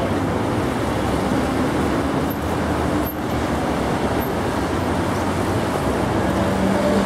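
Steady outdoor noise of a large crowd milling about, mixed with road traffic; no single sound stands out.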